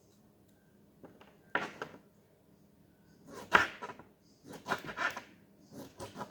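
Handling noises from preparing a peeled lemon by hand: a few irregular rustles and light knocks, the sharpest about three and a half seconds in.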